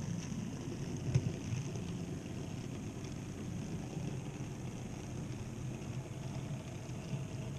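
An N-scale model freight train rolling past on its track: a steady low rumble of wheels and motor, with one sharp click about a second in.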